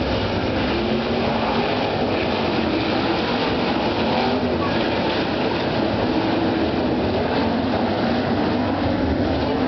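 A field of World of Outlaws sprint cars running together at parade speed in a four-wide salute, their 410 cubic-inch V8 engines making a loud, steady blend with several pitches wavering up and down.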